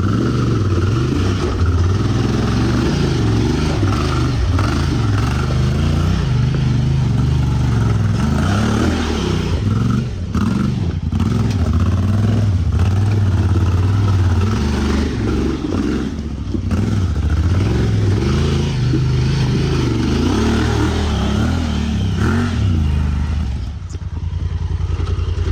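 Off-road vehicle engine running under load, its revs rising and falling repeatedly as it crawls a rough trail, with some clattering and scraping.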